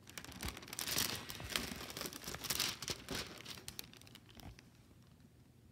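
Clear plastic cover sheet on a diamond painting canvas crinkling and crackling as it is handled, dying away after about four seconds.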